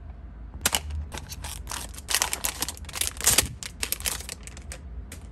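Handling and opening a small cardboard blind box, then a metallic foil blind bag crinkling and crackling as it is pulled open, in a quick run of sharp crackles and clicks.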